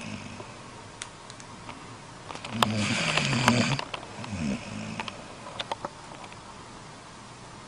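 A sleeping pet snoring. One loud, low-pitched snore comes about two and a half seconds in and lasts about a second and a half. A shorter, softer breath follows, then quiet breathing.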